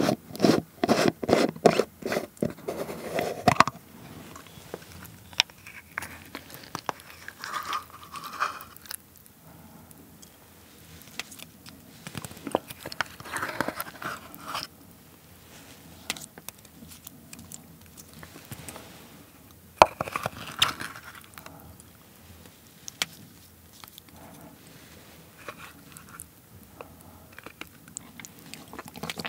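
A plastic jar lid being twisted open with a quick run of clicks over the first few seconds. Then a wooden spoon scrapes and scoops seasoned cockles out of the jar onto rice, in scattered scrapes and taps.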